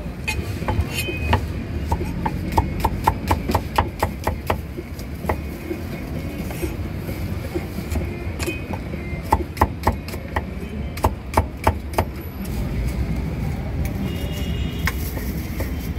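Knife or cleaver chopping on a cutting board: quick, sharp strikes, about five a second, in two runs, over a steady low rumble.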